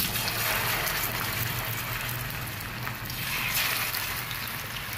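Masala-coated fish pieces sizzling as they shallow-fry in hot oil in a frying pan, a steady dense hiss that swells a little about three and a half seconds in.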